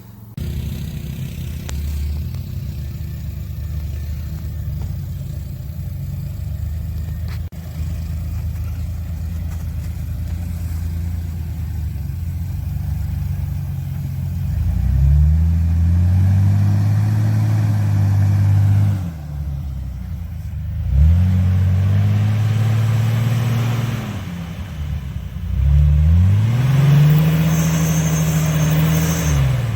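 Off-road vehicle engine running steadily at low revs, then revved hard three times. Each time the pitch climbs, holds for a few seconds and drops back.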